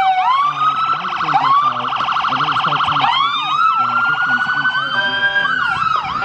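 Several emergency-vehicle sirens sounding at once and overlapping: a long wail that slowly falls and then climbs again, a fast warbling yelp, and short rising-and-falling sweeps repeating about three times a second.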